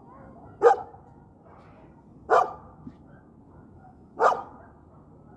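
A dog barking three times, single loud barks about two seconds apart.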